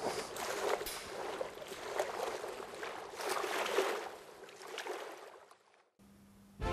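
Sea surf: waves washing in, in slow swells of rushing noise, fading out near the end.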